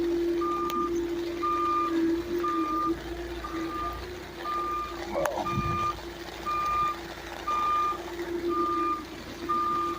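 Forklift backup alarm beeping about once a second as the forklift reverses, over the steady hum of the forklift running.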